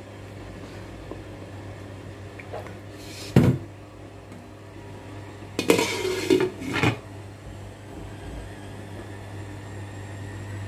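A glass pot lid being set onto a large cooking pan, clinking and knocking against the rim several times about six seconds in, after a single sharp knock at about three seconds in. A steady low hum runs underneath.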